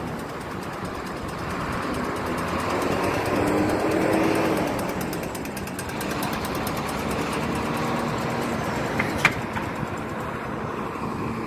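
Road traffic passing on a city street: a vehicle's noise swells and fades over a few seconds, with one sharp click about nine seconds in.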